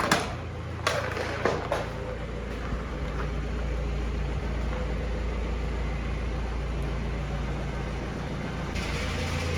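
BMW E91's 2.0 diesel engine running steadily at low speed as the car creeps into the garage, with a few sharp knocks in the first two seconds.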